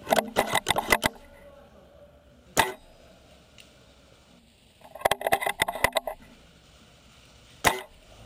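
Airsoft gunfire: two rapid bursts of sharp cracks, each lasting about a second, one at the start and one about five seconds in, with single sharp shots about two and a half seconds in and near the end.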